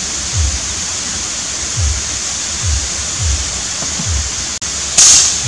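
Steady outdoor hiss with soft low thumps of footsteps as someone walks with the camera. Near the end there is a single loud, sharp burst: an air rifle firing.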